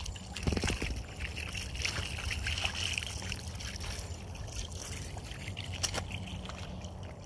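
A dog wading through shallow water, the water moving and sloshing around its legs, over a steady low rumble.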